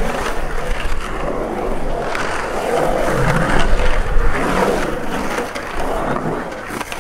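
Skateboard wheels rolling and carving around a concrete pool bowl: a loud, rough rumble that rises and falls as the rider moves through the transitions.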